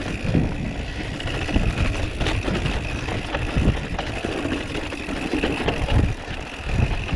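Mountain bike ridden over a rough dirt trail: a steady rumble of tyres on the ground with irregular knocks and rattles of the bike over bumps.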